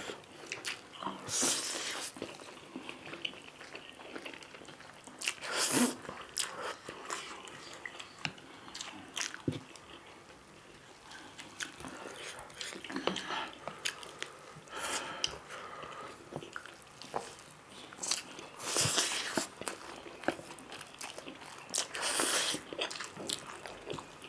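Two people eating spicy instant noodles with chopsticks: loud slurps of noodles every few seconds, with chewing and small clicks in between.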